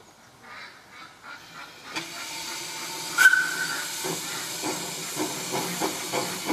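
Narrow-gauge Hunslet saddle-tank steam locomotive: steam starts hissing about two seconds in, and a second later comes one short whistle toot. The exhaust then begins to beat in quick chuffs, coming a little faster, as the engine moves off.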